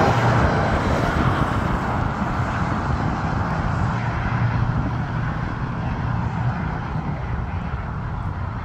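Airliner engines at an airport, a Dash 8 Q400's turboprops after landing and a Boeing 737's jets taxiing: a steady low hum under a broad rushing noise that slowly fades.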